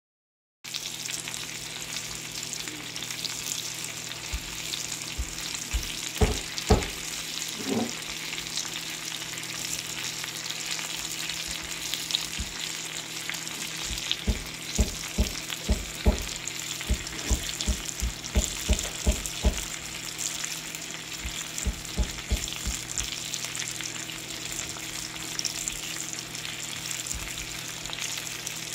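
Ribeye steak frying in hot fat in a skillet: a steady sizzle with many short pops of spitting fat, thickest around the middle.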